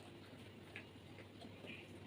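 Near silence with faint soft clicks, roughly one a second, amid quiet sounds of eating.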